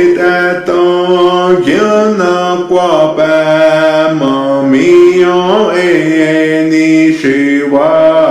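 A voice singing a chant-like prayer song in long held notes that glide up and down between pitches.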